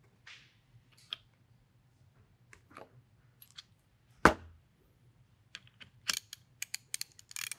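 Small clicks of metal parts and tools being handled during disassembly of an FX Impact M3 air rifle, with one sharp knock about four seconds in and a quick run of light clicks near the end.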